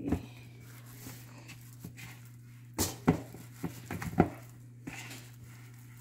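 Hands handling soft dough in a plastic bowl lined with plastic wrap: scattered soft knocks and rustles of the wrap, with a cluster of sharper knocks about three to four seconds in, over a steady low hum.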